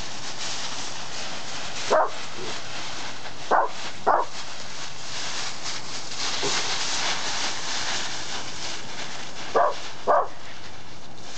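A dog barking in five short barks: one about two seconds in, a pair a moment later, and another pair near the end. Under the barks runs a steady rustle of dry leaves.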